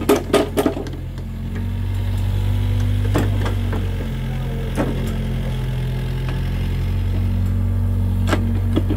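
Diesel engine of a small excavator running steadily as it loads soil into a three-wheeled công nông farm truck, its note shifting slightly about four seconds in. A few sharp knocks come through it.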